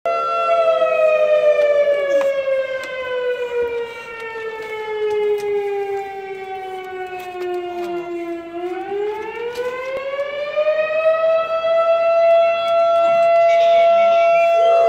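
Outdoor warning siren wailing, its pitch falling slowly for about eight seconds, then rising again and holding steady. English bulldogs howl along faintly.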